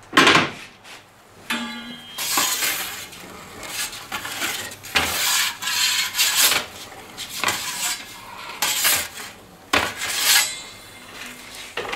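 Metal pizza peel scraping and clattering against metal in irregular bursts lasting about half a second to a second and a half each.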